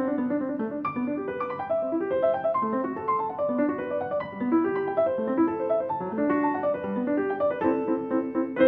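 Background piano music: a flowing melody of quick note runs over sustained lower notes.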